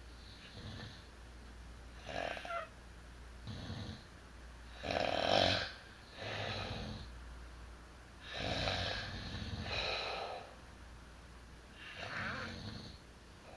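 Two people asleep side by side, snoring: about eight uneven snores, some overlapping, the loudest about five seconds in.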